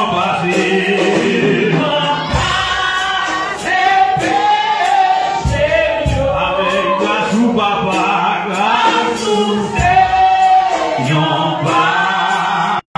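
Gospel choir singing a devotional song, with male voices among them. The sound cuts out briefly near the end.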